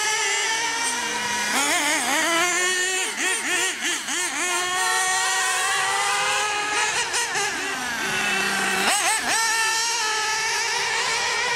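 Several small glow-fuel (nitro) engines of radio-controlled racing cars running at high revs together. Their pitch rises and falls as the throttles are worked, with a run of quick throttle blips about three to four seconds in and a sharp rev-up and drop near the end.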